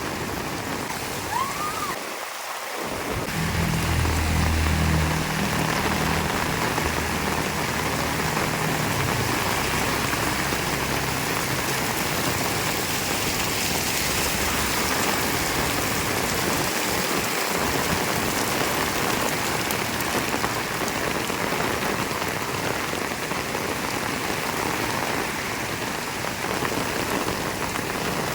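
Heavy rain falling steadily on surfaces, an even hiss of drops. A low rumble comes in a few seconds in and fades out after several seconds.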